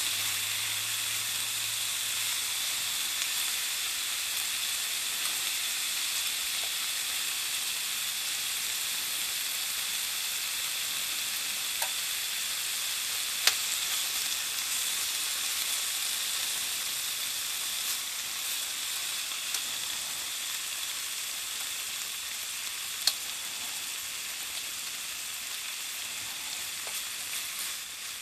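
Marinated beef bulgogi sizzling steadily on an electric hot plate as it is stirred with chopsticks, with a couple of sharp clicks along the way; the sizzle eases a little toward the end.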